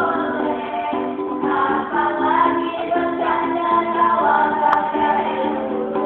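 A slow song being sung with musical accompaniment, the melody moving in long held notes.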